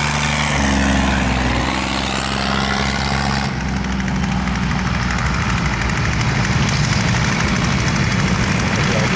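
Engines of several vintage racing tractors running as the tractors drive across a grass field. The sound changes abruptly about three and a half seconds in.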